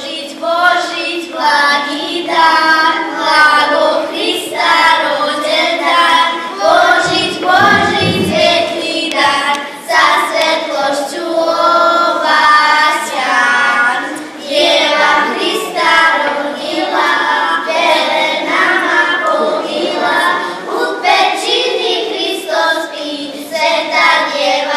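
A small group of young girls singing a song together into a microphone, phrase after phrase with brief breaks between.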